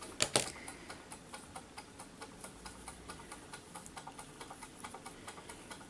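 Faint, rapid, even ticking, about four to five ticks a second, with one louder knock a moment in.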